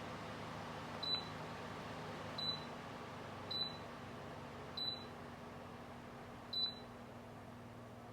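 Dreo tower fan's control beeping five times as its buttons are pressed, short high beeps at uneven intervals, over the steady whir of the fan running.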